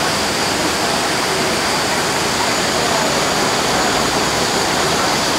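Loud, steady rush of falling water from a waterfall, an even hiss with no breaks.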